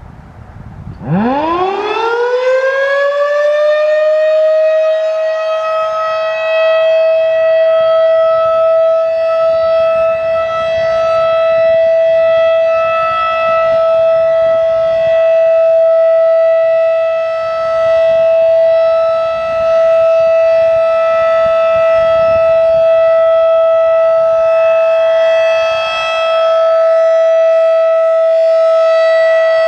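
Federal Signal 2001-DC rotating mechanical warning siren winding up about a second in, its pitch climbing quickly and then holding one steady loud tone for the Full Alert signal. The loudness dips and swells every few seconds as the rotating head sweeps past.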